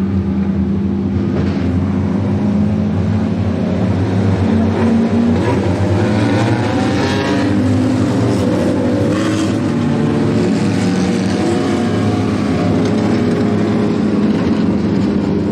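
A pack of four-cylinder Super 4 dirt-track race cars running around the oval together, their engines blending into a steady drone with some rising and falling revs as they pass.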